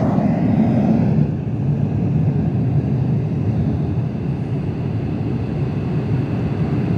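White noise from a portable speaker inside an acoustic test funnel, heard through a floor sample of STP Intrigo damping and STP Bromo barrier layers: a steady, muffled hiss with most of the high end cut away, leaving mainly low rumble. The upper part of the hiss drops a little about a second in.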